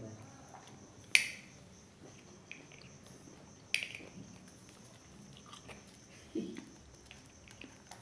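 A rose-ringed parakeet pecking at a plastic toy duck and its drum: a few sharp beak taps on plastic, two loud ones about a second and about four seconds in, with fainter ticks between. A short, soft, low sound comes about six seconds in.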